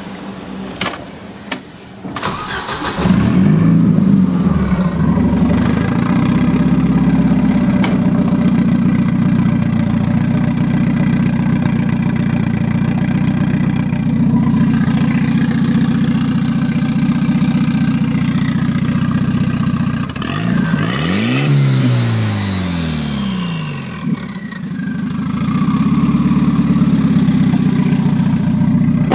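Volvo 740 Turbo's B230FT turbocharged four-cylinder engine started up, catching about two to three seconds in and then idling steadily. About 21 seconds in it is revved once, pitch rising and falling, and drops back to idle.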